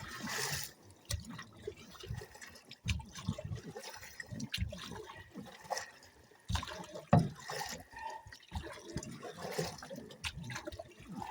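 Paddle strokes in lake water beside a boat: irregular splashing and dripping, with a few light knocks.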